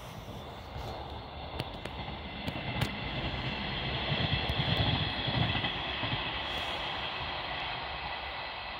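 Distant passenger multiple-unit train running past: a low rumble with a faint steady hum over it, swelling a little about halfway through.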